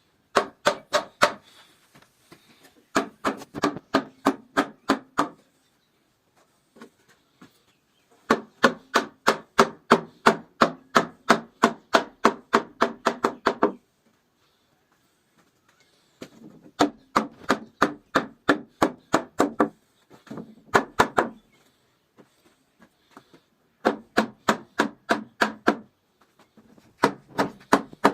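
Quick, evenly spaced tool strikes on wood, about four to five a second, in runs of one to five seconds with short pauses between.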